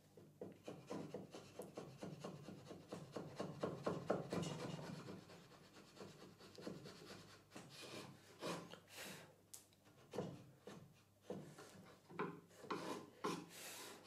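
A chisel held flat paring oak in many short scraping strokes, quick and close together at first, then slower separate strokes in the second half.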